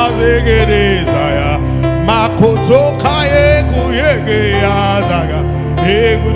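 Gospel worship music from a live band: a melody line sliding and bending between notes over sustained chords and a steady bass.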